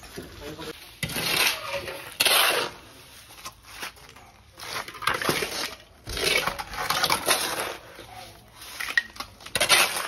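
Gritty scraping of a wet cement-sand mix being scooped up by hand into shallow metal pans, coming in several bursts a second or two long with short pauses between.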